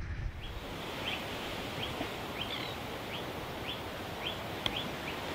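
A bird calling with a short, high chirp repeated about twice a second over a steady background hiss.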